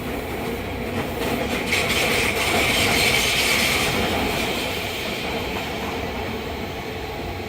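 Fukuoka City Subway 2000-series train running in the subway tunnel, heard from inside the car. The wheel and rail noise swells from about a second and a half in, is loudest around three seconds, then eases off, with a few clicks over rail joints as it builds.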